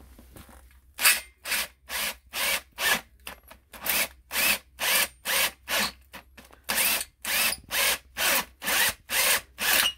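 Cordless drill with a 24 mm hole saw cutting into the metal top of a kerosene burner's brass fuel tank. It goes in short, rasping bursts, about two a second, starting about a second in.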